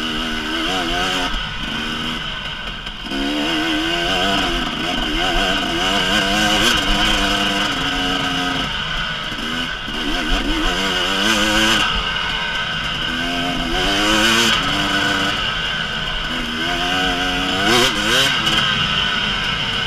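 The 2018 KTM 300EXC's single-cylinder two-stroke engine is ridden hard along a trail, its revs rising and falling every second or two as the throttle is worked, with a steady wind-and-chassis noise behind it and a few brief knocks.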